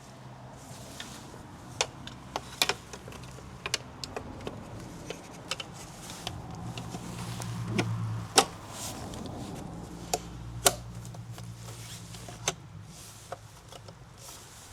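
Scattered sharp clicks and knocks of tools and parts being handled, over a faint low steady hum. The loudest knocks fall about eight and eleven seconds in.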